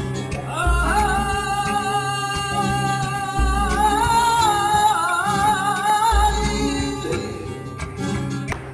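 Flamenco music: a voice holds one long, wavering, ornamented sung line that climbs in pitch midway, over a deep bass thump about every three seconds.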